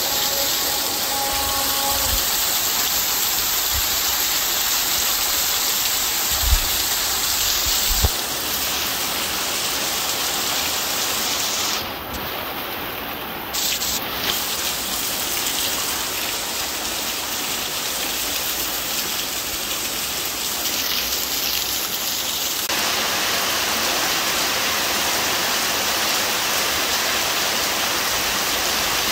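Heavy rain falling steadily on a tin roof and pouring off its eaves. Two short sharp knocks come about six and a half and eight seconds in.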